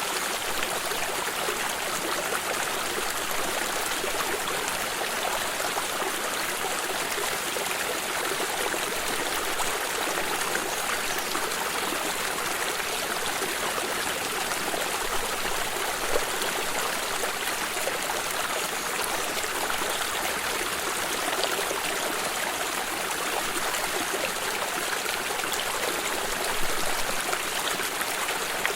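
Water stream running steadily, a continuous rushing and trickling with small splashes now and then.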